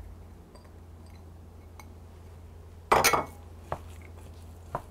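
Glass bowls clinking as chopped cheese is tipped from a small glass bowl into a glass mixing bowl: a few faint taps, then one loud glass clink about three seconds in, followed by two light knocks of a wooden spoon against the bowl.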